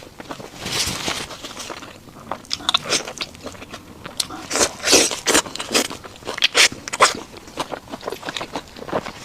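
Close-miked biting and chewing of a burger: irregular wet, crunchy crackles of bites and chews.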